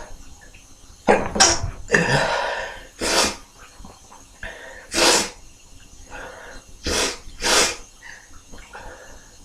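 A man's sneezing fit: about six loud, sudden sneezes in a row, two of them in quick pairs, with short sharp breaths drawn in between.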